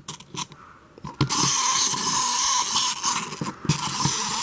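Bootleg Doraemon jump-rope wind-up toy released after winding: its clockwork spring motor whirs steadily from about a second in, with a few sharp taps along the way.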